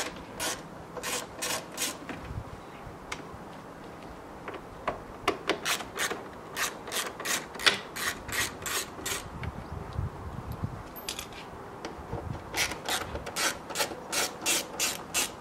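Ratchet screwdriver clicking in quick, evenly spaced runs as it undoes the screws holding the grille, with a short break a few seconds in.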